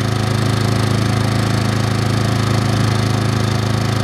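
Westinghouse WH2400i inverter generator's small 79cc single-cylinder four-stroke engine running steadily and quietly with an even hum, just refilled with fresh synthetic oil.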